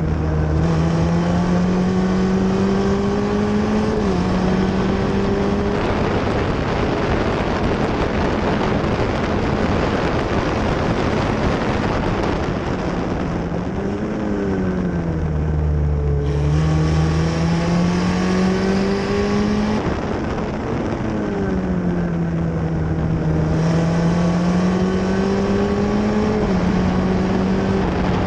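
F1600 open-wheel race car's four-cylinder engine at racing speed, heard onboard: the revs climb and drop back at each upshift, and about halfway through fall away with quick throttle blips on the downshifts into a corner before climbing again. A steady rush of wind and road noise runs underneath.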